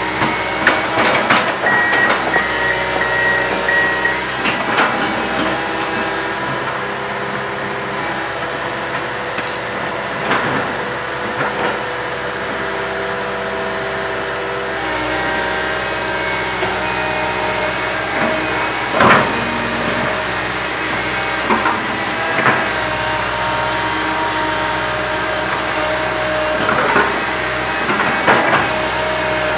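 Komatsu PC160 hydraulic excavator working, its diesel engine and hydraulics running steadily with the note shifting about halfway through. Occasional knocks and clanks from the machine.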